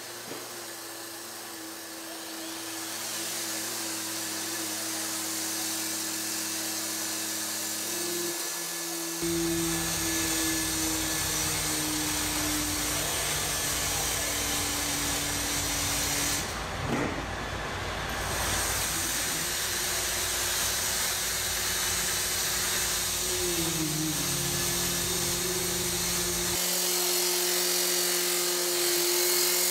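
Steady mechanical whine and hiss of a Boston Dynamics Handle wheeled robot at work. Its hum tones shift in pitch, with one sliding down once, and the sound changes abruptly a few times.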